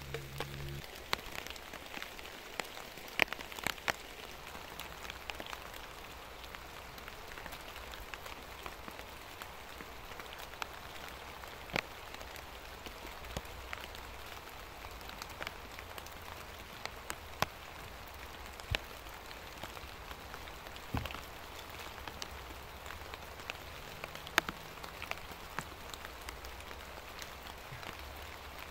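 Steady rain falling in woodland, an even hiss with many sharp single drops striking close by at irregular moments.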